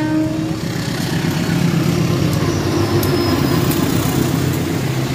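A train passing close by at a level crossing: a steady rumble of engine and wheels on the rails, with a few sharp clicks of wheels over rail joints. A held warning note cuts off about half a second in.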